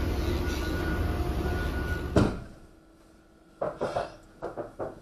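Forklift running with a steady low rumble and a faint whine while moving a pallet; it cuts off abruptly about two seconds in. Then a few light clicks and knocks in a quiet van cab.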